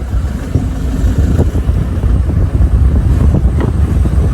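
Wind buffeting the microphone over the steady engine and road rumble of a moving pickup truck, heard from its open back.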